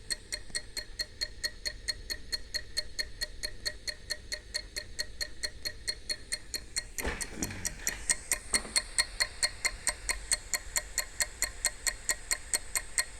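Kienzle 606C clock movement ticking steadily, about five ticks a second, running well on test after repair of its lever escapement. A brief rustling knock comes about seven seconds in, after which the ticks are louder.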